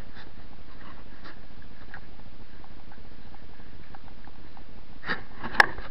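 Steady hiss with faint scattered clicks, then a short cluster of louder clicks ending in one sharp click near the end: handling noise from a handheld camera being carried over dry ground.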